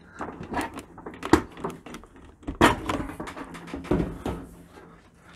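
Stainless steel outer door panel of a Bosch dishwasher being pulled off by hand: a series of sharp metal clunks and clicks, the loudest about two and a half seconds in.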